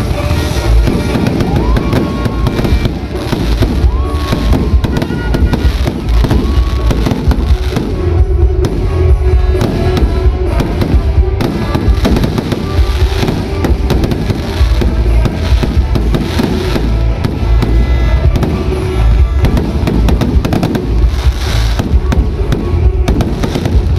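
Loud fireworks display: aerial shells bursting in a dense, continuous string of bangs and crackles.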